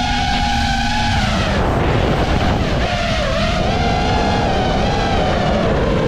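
FPV freestyle quadcopter's brushless motors whining with a rush of air, the pitch dropping about a second in and climbing back as the throttle changes.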